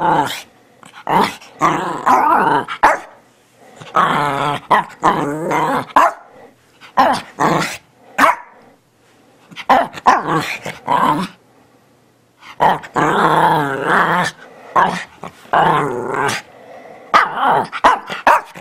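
Small Shih tzu–Bichon Frise mix dog 'talking': a string of growly barks and yowls whose pitch rises and falls, in bursts of one to two seconds with short pauses between.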